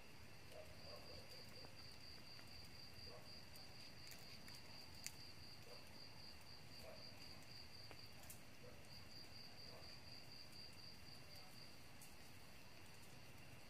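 Quiet night insect sound: a cricket trilling in a rapid, even pulse over a steady background insect chorus. The trill starts about a second in, breaks off briefly, and stops near the end, with a few faint ticks from handling.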